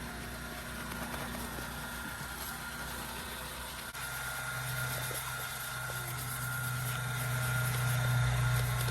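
Pressure washer running steadily with a low hum that grows louder, broken by two abrupt cuts, near the start and about four seconds in.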